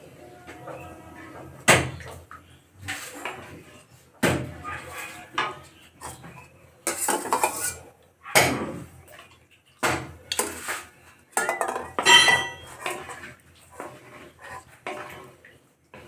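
Wooden spatula stirring curry gravy in a metal kadai, scraping and knocking against the pan in irregular sharp knocks a few seconds apart. Near the end there is a short metallic ring.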